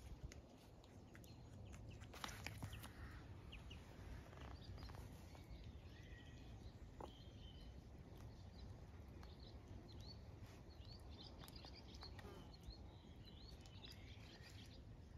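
Quiet outdoor ambience: faint bird chirps over a low steady rumble, with a few soft clicks in the first seconds.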